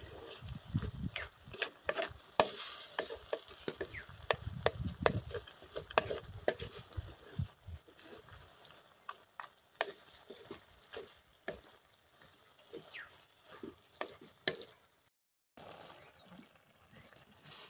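Wooden spatula stirring wet leafy greens in an earthen clay pot, with irregular knocks and scrapes of wood against clay. The knocks thin out later, and after a short break a quieter stretch follows near the end.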